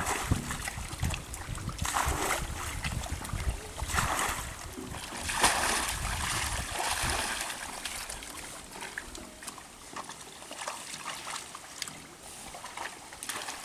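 Splashing and sloshing in shallow, muddy pond water as people wade and grope through it by hand for fish, with louder splashes about two, four and six seconds in.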